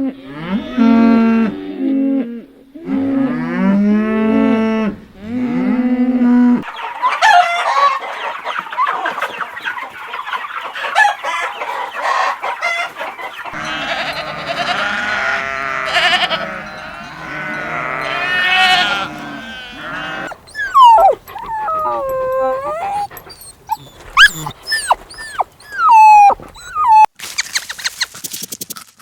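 A cow moos three times, each a long low call. A dense mix of other farm animals' squeals and cries follows, with short high sliding calls in the last several seconds.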